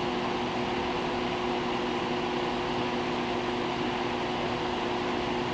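A fan running steadily: an even whirring hiss with a low, steady hum.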